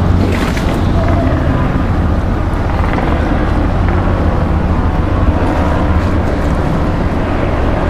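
Steady low engine rumble under a constant wash of noise, with no distinct events.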